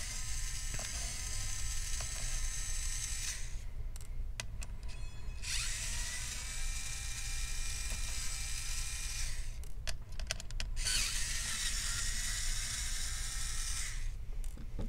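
Handheld electric screwdriver unscrewing laptop hinge and DC jack screws. It runs as a steady whine in three spells of about three to four seconds each, stopping and restarting twice, with a few sharp clicks in the pauses.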